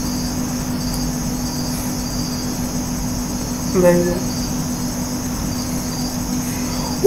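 Steady high-pitched background buzz over a low steady hum. A short voice sound comes about four seconds in.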